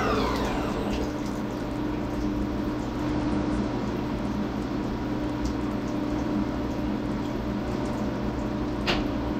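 Syil X7 CNC mill's spindle winding down with a falling whine that dies out within the first second, then the machine sitting idle with a steady hum and coolant trickling and draining in the enclosure. A brief hiss comes near the end.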